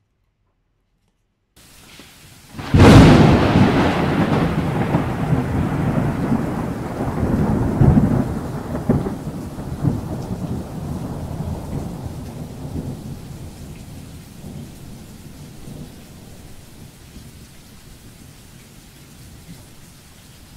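Thunder sound effect: a sudden crack about three seconds in, then a long rolling rumble with a couple of further swells that fades over about ten seconds into a steady faint hiss.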